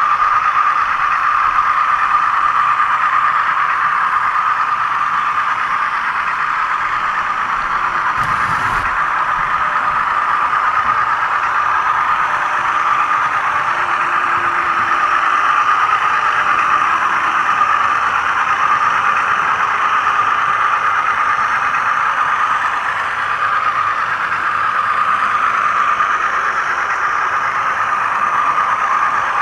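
HO scale model train running along the track, heard close up: a steady whir from its motor, gears and wheels on the rails, with a single short knock about eight and a half seconds in.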